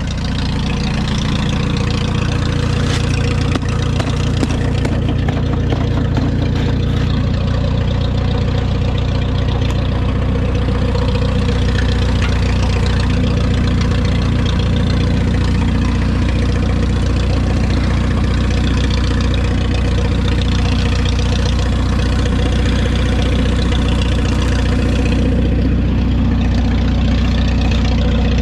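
Minneapolis-Moline U tractor engine idling steadily.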